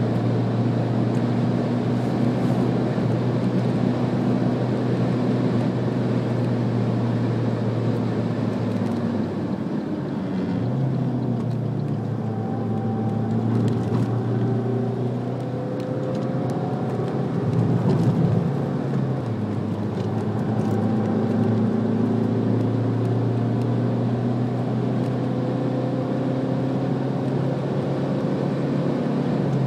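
Alfa Romeo MiTo's engine heard from inside the cabin under hard track driving: steady high revs on a straight, then the pitch drops and wanders about a third of the way in as the car slows through corners. A louder surge of revs comes just past halfway, then it settles back to steady high revs.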